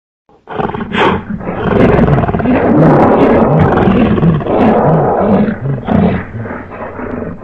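A loud, rough, deep animal roar offered as the call of the extinct giant crocodilian Purussaurus brasiliensis, necessarily a reconstruction or sound effect. It starts abruptly about half a second in and runs on with a low throbbing pulse about twice a second.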